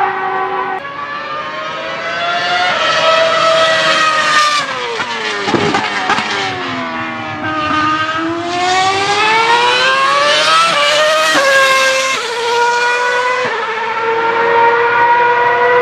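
Formula 1 car engine at high revs. Its pitch sinks and then climbs steadily as it accelerates, followed by several sudden pitch drops as it shifts up through the gears.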